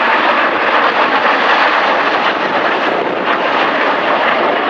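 Rolls-Royce Avon jet engines of an English Electric Canberra PR.9 and a Hawker Hunter T.7 flying past together in formation. The jet noise is loud and steady throughout.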